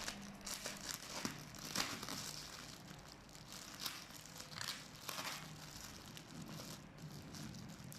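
Parcel packaging crinkling and tearing in irregular rustling bursts as the package is opened.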